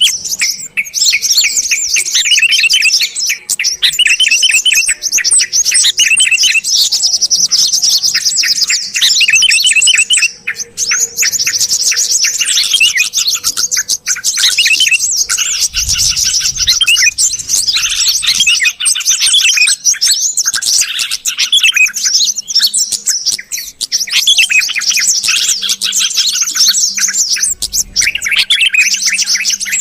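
Yellow-vented bulbuls and sooty-headed bulbuls calling together, a dense, unbroken run of rapid bubbly chirps and whistled notes.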